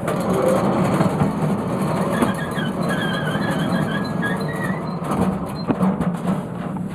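Sawmill running in black walnut: a steady mechanical noise, with a wavering squeal rising over it between about two and five seconds in. The noise falls away near the end.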